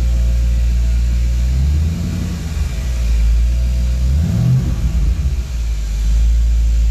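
2009 Ford Mustang GT's 4.6-litre V8 idling, then revved in two quick throttle blips, about two seconds in and again just after four seconds, each rising and falling back to idle. It breathes through a freshly fitted Ford Racing 85 mm cold air intake with a Bama tune.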